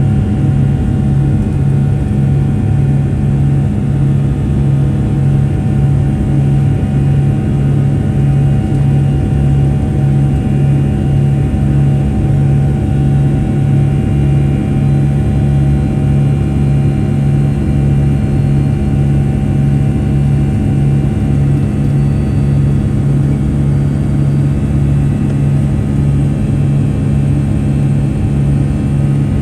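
Cabin noise of a Boeing 757-200 heard from inside the forward cabin: a loud, steady engine drone with a low hum that neither rises nor falls.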